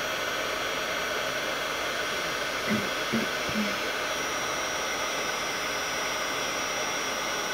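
Embossing heat gun blowing steadily as it melts embossing powder on a stamped card, a rushing fan with a thin high whine. Three brief low bumps come close together about three seconds in.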